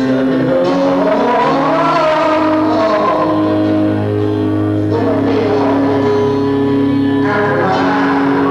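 Live gospel song: a man sings into a microphone over an electric keyboard holding long, sustained chords.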